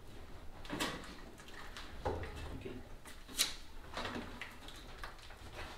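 Scattered light clicks, knocks and rustling from hands working on a washing machine's hose fittings, with one sharp click about three and a half seconds in.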